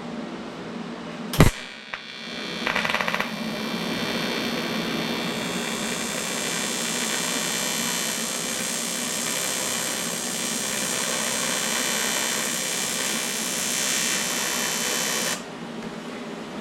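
TIG welding arc fusing aluminium intercooler tubing: a sharp click about a second in, then a steady electric buzz with a high hiss that holds for about thirteen seconds and cuts off suddenly near the end.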